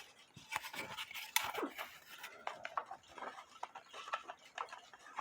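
Wooden back door of a cuckoo clock case being slid in its groove slots and handled: light scraping with scattered small clicks and knocks.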